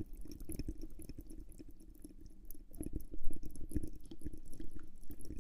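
Close-miked ASMR mouth sounds: soft, irregular clicks and smacks, thickest about halfway through, over a faint steady low hum.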